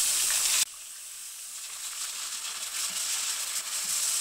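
Chicken leg pieces and chopped tomatoes sizzling in hot oil over a high flame while being stirred with a spatula. The sizzle drops off suddenly about half a second in and builds back up after a couple of seconds.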